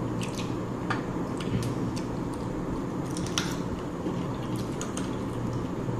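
Close-up eating sounds of a rice and fish curry meal: wet squishing and chewing with scattered small clicks, over a steady low hum.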